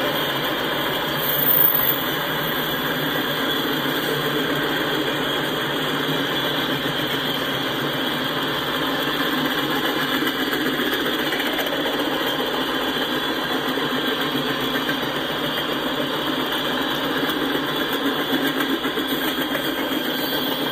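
Freight train cars (hoppers and tank cars) rolling past at speed: a steady rumble and rush of steel wheels on the rails, with a brief louder burst about a second and a half in.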